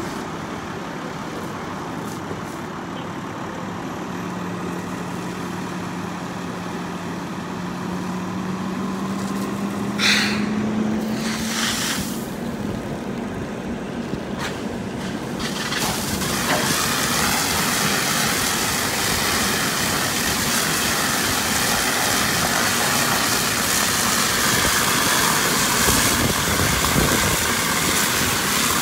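Fire engine's pump and engine running steadily, with a hum that slowly rises in pitch, and two short hisses about ten seconds in. From about halfway through, the steady hiss of water rushing from an open hose nozzle joins the engine and becomes the loudest sound.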